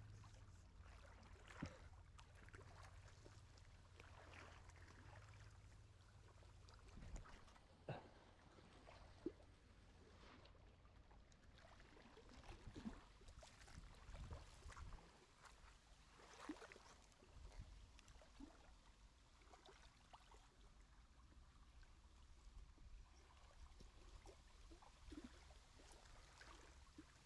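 Near silence: faint low background rumble with scattered soft clicks and ticks.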